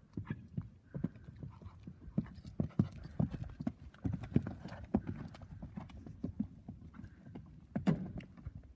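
Hoofbeats of a Thoroughbred horse cantering and jumping on sand footing: an irregular run of dull thuds, with one louder thump near the end.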